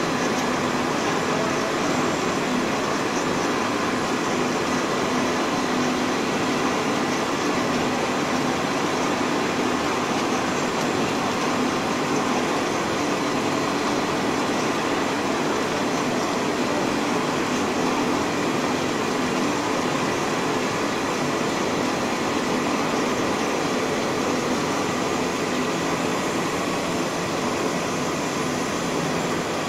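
Instant noodle production line running: a steady machine noise with a faint constant hum from the rollers, conveyors and drive motors.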